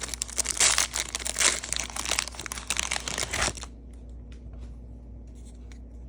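Wrapper of a Donruss basketball card pack crinkling as it is torn open and pulled off, stopping about three and a half seconds in; after that only faint light ticks.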